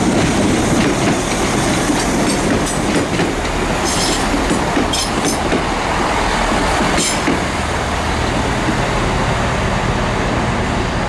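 A passenger train moving through the station: a steady rumble of wheels on the track with short, sharp high-pitched squeaks and clicks about four, five and seven seconds in, easing off slightly near the end.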